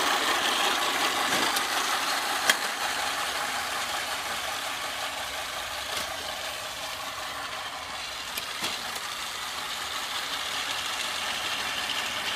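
The electric motor of a 1950s E-Z Kutr lawn mower running steadily while the mower drives across the grass, fading as it moves away and growing louder again as it comes back, with a sharp click about two and a half seconds in.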